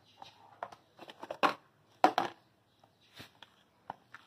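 Dog food bowls and a serving utensil knocking and scraping as portions of food are dished out: a scattered run of sharp knocks, the two loudest about a second and a half and two seconds in.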